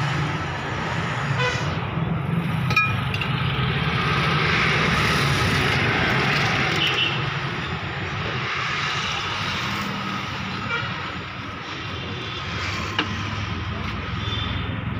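Steady road traffic with a vehicle engine running, a continuous low hum under a noisy wash, and a couple of short sharp clicks, one about three seconds in and one near the end.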